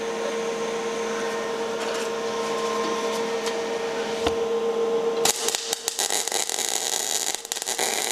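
A steady machine hum, then about five seconds in a MIG welding arc is struck for a tack weld: a dense crackling and sputtering that lasts about three seconds, with a brief break near the end.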